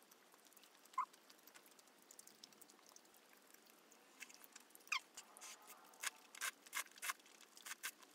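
Close-up eating sounds of a person chewing chewy tteokbokki rice cakes: wet mouth clicks and smacks come in a quick run from about five seconds in, after two short squeaks, one about a second in and one near five seconds.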